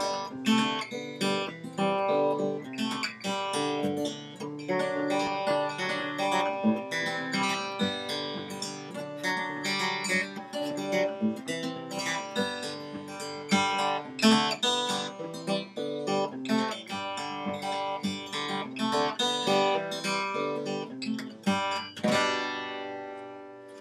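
Acoustic guitar music, a quick run of plucked notes, ending on a chord that rings out and fades near the end.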